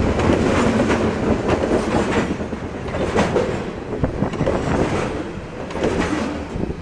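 Freight cars of a CSX train rolling past, with irregular clacks of wheels over rail joints in a steady rumble. It gets quieter in the second half.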